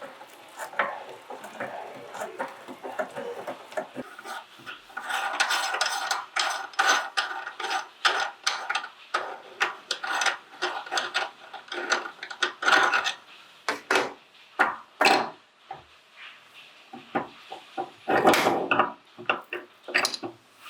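Crisp wafer ice cream cones cracking and crunching as a meat grinder breaks them up, in irregular bursts of sharp cracks with denser stretches of crunching about five, twelve and eighteen seconds in.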